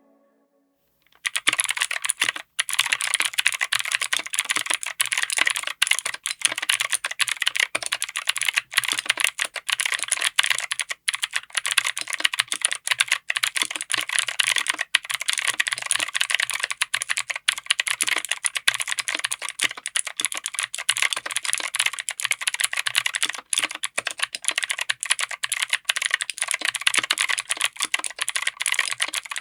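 Fast typing on a mechanical keyboard fitted with Outemu Cream Blue clicky switches, whose click-jacket mechanism gives each keystroke a sharp click, in an FR4 plate and aluminium case. A dense, continuous run of keystrokes starts about a second in.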